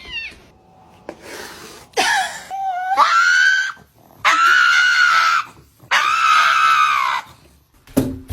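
Loud, high-pitched screaming: after a short wavering cry, three long, steady screams follow one another, each lasting about a second. A sharp click comes near the end.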